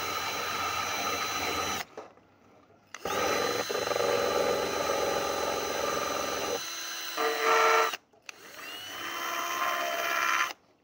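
Small electric motor, like a hand power tool, running in three bursts that each stop abruptly. Its pitch shifts partway through the second burst, and the third starts with a rising whine as the motor spins up.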